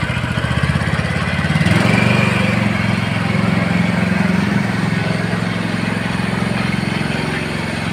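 Rover ride-on lawn mower's engine running while the mower drives forward under throttle. Its speed picks up about two seconds in and then holds at a steady, higher note.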